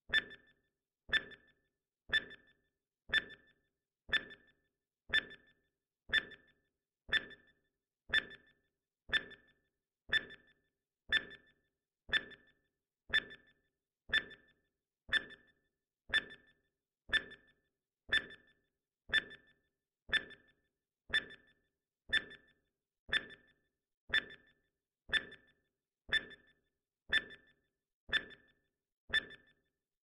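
Countdown timer sound effect: one short, pitched tick every second, in step with the seconds counting down, each dying away quickly.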